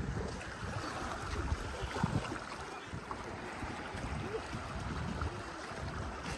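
Wind buffeting the microphone: a steady, uneven low rumble, with faint distant voices now and then.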